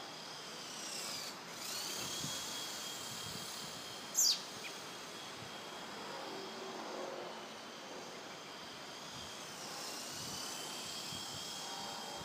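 Blade 120 SR micro RC helicopter flying, its electric motor and rotor giving a thin high whine that dips and rises in pitch as it moves. About four seconds in there is one short, loud whistle that falls steeply in pitch.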